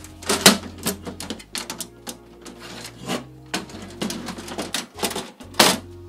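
Irregular clicks and knocks of a PC case's windowed side panel being pulled off and laid down on a table, the sharpest knock shortly before the end.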